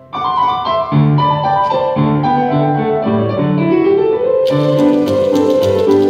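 Grand piano played four hands in a brisk, light piece, the playing breaking off for a moment at the start and then going on. About four and a half seconds in, a rapid run of sharp clicks joins the piano: the typewriter part, typed on the miked keyboard beside the stage.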